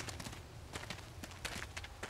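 Quiet, irregular soft clicks and taps, several a second, over a low steady hum, in the opening seconds of a song recording.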